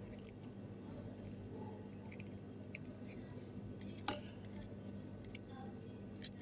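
A soldering iron drags desoldering braid over the solder pads of an SSD circuit board, making faint small ticks and one sharp click about four seconds in, over a steady low hum.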